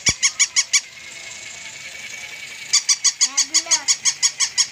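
A battery-operated plush toy dog giving fast, high-pitched electronic yaps, about five a second, in two runs. A steady high whine from its motor runs between them.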